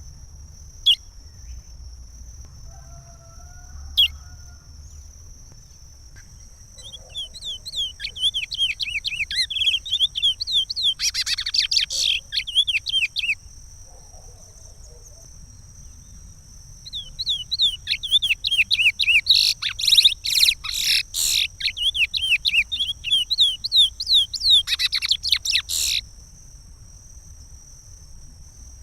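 Curió (chestnut-bellied seed-finch) singing the Pará regional song. Two single sharp notes come first, then two long bouts of rapid, falling whistled notes, about six and nine seconds long, with a pause between them.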